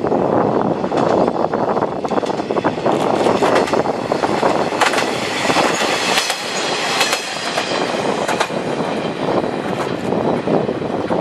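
Diesel railcar passing close by, its wheels clattering over the rail joints, with a faint high wheel squeal in the middle of the pass.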